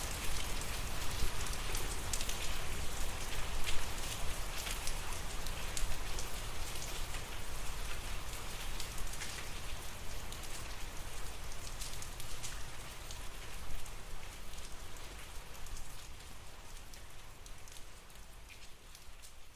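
Steady rain falling, with many individual drops heard hitting a surface over a low rumble, fading out near the end.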